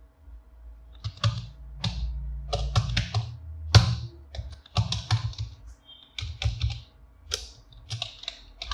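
Typing on a computer keyboard: irregular runs of keystroke clicks, starting about a second in.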